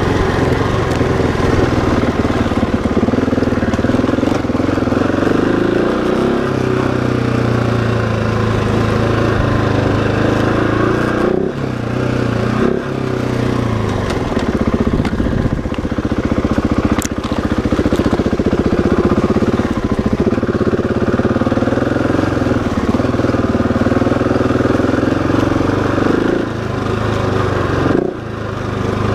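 Husqvarna 701 Enduro's single-cylinder four-stroke engine running under way, its pitch rising and falling with the throttle, easing off briefly about eleven seconds in and again near the end.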